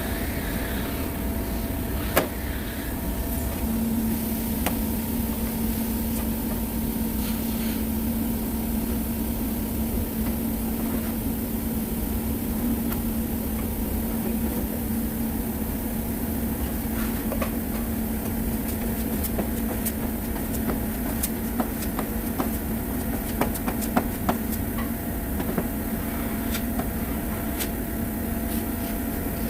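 Steady machine noise with a low hum that comes in about four seconds in and holds, with scattered light clicks.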